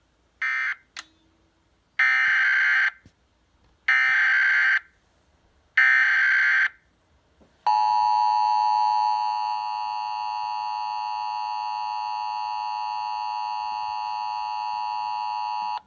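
Emergency Alert System signals relaying an Amber Alert. First a brief chirp, then three roughly one-second bursts of shrill warbling digital data, the SAME header. Then the EAS two-tone attention signal comes in, a harsh steady chord held for about eight seconds and cutting off sharply.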